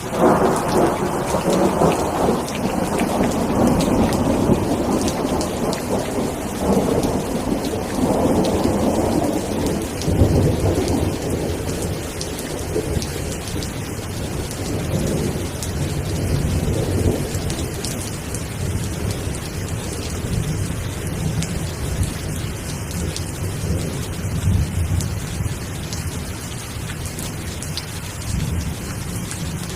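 Steady rain with a thunderclap that breaks in suddenly at the start and rumbles loudly for about ten seconds. It then fades into low rolling thunder that swells a few more times under the rain.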